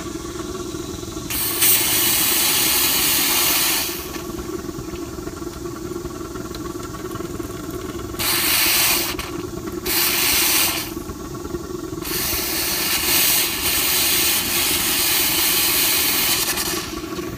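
Steam hissing in four bursts from a 1/8-scale live-steam Shay locomotive's injector as its steam valve is opened, the longest lasting about five seconds near the end: the injector is not picking up. Under it, the propane burner in the firebox runs with a steady hum.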